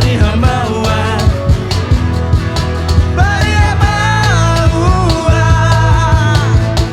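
Live rock band playing an instrumental passage: steady drum beat and bass under guitars. About halfway through, a lead melody comes in, bending up and holding long notes.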